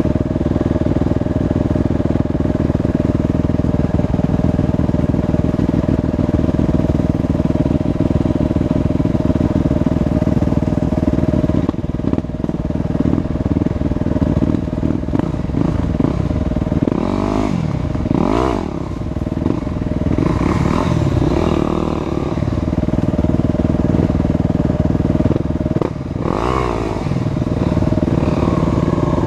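Enduro dirt bike engine running at low speed through brush, steady at first, then uneven, with short revs rising and falling a little past halfway and again near the end.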